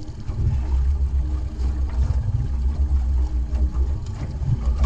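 Yamaha F25 four-stroke outboard motor idling steadily, a low running hum with a rumble underneath.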